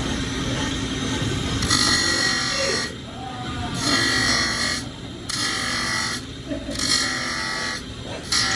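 Steel forceps jaws being ground on a powered grinder: a steady motor hum, and from about two seconds in, five passes of metal against the abrasive, each about a second long and high-pitched, with short breaks between them.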